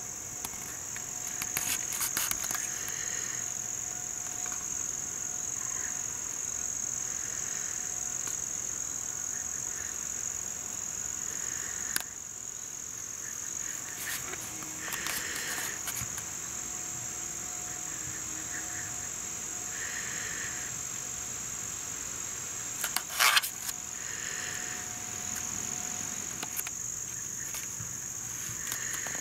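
Outdoor summer chorus of insects: a steady high-pitched trill, with shorter calls repeating every few seconds. A few sharp clicks break in, the loudest cluster about three-quarters of the way through.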